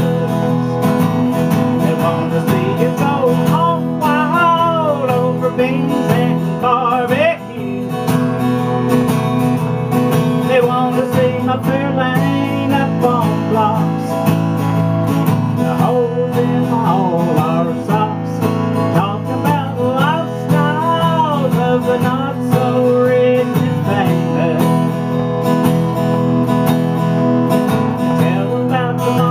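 Acoustic guitar strummed steadily while a man sings along into a microphone.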